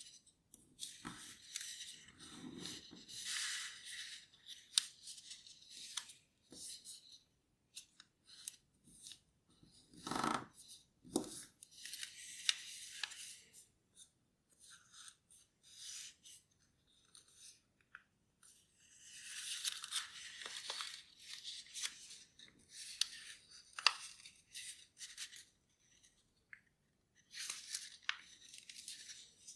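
A sheet of 15 cm origami paper rustling and crinkling as it is folded and creased by hand. It comes in irregular bursts with crisp crackles and short quiet gaps, and there is a duller thump about ten seconds in.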